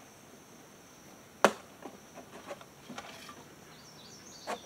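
Downspout sections knocking and clicking as they are handled and fitted together: one sharp click about a second and a half in, a few lighter knocks after it, and another click near the end. A steady high insect buzz runs underneath.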